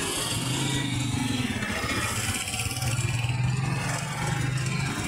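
Street traffic with motorcycles passing: a steady engine hum over road noise.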